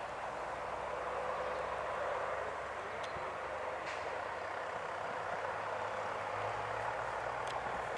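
Double-decker buses' diesel engines running as they drive up the road, heard from a distance as a steady drone, with a few faint clicks.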